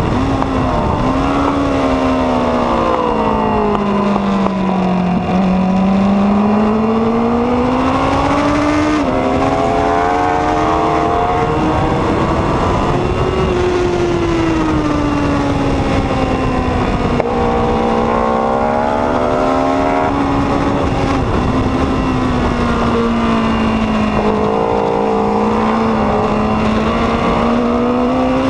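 Onboard sound of a 2014 Honda CBR1000RR SP's inline-four engine at racing speed under heavy wind noise. Its pitch falls over the first five seconds, climbs to a peak about thirteen seconds in, then falls again and rises near the end as the bike slows for and drives out of corners.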